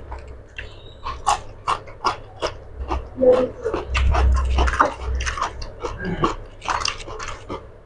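Close-up eating sounds: a hand mixing rice with curry on a steel plate and chewing, an irregular run of wet smacks and clicks several times a second.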